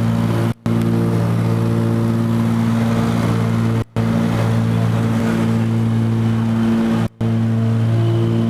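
Propeller engines of a small passenger airplane droning steadily, heard inside the cabin on approach to land: a loud, even hum with a low steady pitch and its overtones. The sound drops out for a split second three times.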